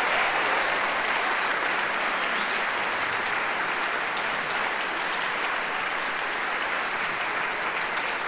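Theatre audience applauding: steady, sustained clapping at the end of a talk.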